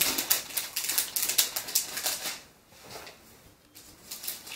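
Metallic gift-wrapping paper around a book crinkling and crackling as it is handled and picked at, in quick runs of small crackles. It eases off about halfway through, then crackles again near the end.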